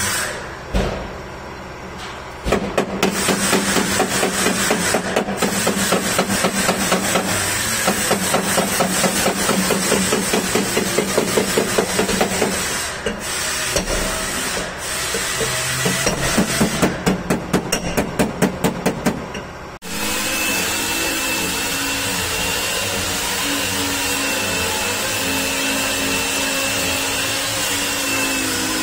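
Rapid, even knocking, several blows a second, for most of the first part, with a short pause partway through. It stops abruptly and gives way to a steady machine hum with a faint high whine.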